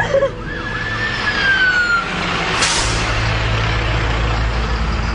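Emergency vehicle siren with a single wailing tone that slides downward over about two seconds. About two and a half seconds in comes a loud whoosh, followed by a steady low rumble.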